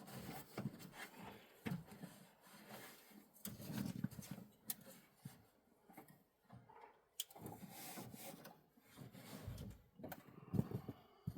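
Scattered handling noises: irregular rubbing with light knocks and clicks.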